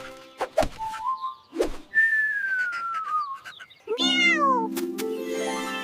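Cartoon sound effects: a few quick swishes, then a single whistled note sliding slowly downward, followed about four seconds in by a short cartoon cat 'meow' falling in pitch, as the backing music comes back in.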